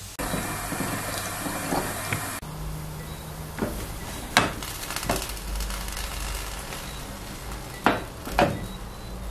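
Tap water running over a metal pressure cooker in the sink for about two seconds, cutting off abruptly. Then a few sharp clicks and knocks as the pressure cooker and its lid are handled.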